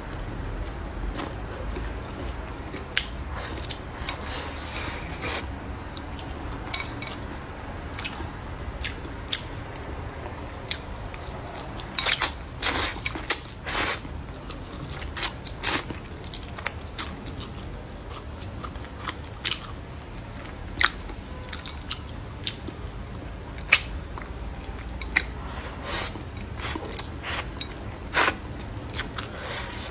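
Close-up eating sounds: chewing and slurping of glass noodles in sauce, with many short, sharp wet mouth clicks. There is a cluster of louder slurps about halfway through.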